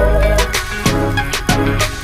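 Music with a steady drum beat and deep bass notes.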